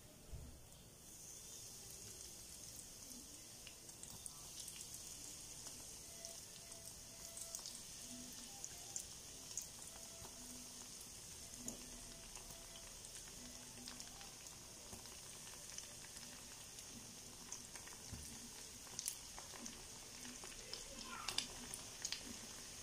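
Breadcrumb-coated stuffed pasta deep-frying in hot oil in an iron kadai: a steady, faint sizzling hiss with light crackles, starting about a second in.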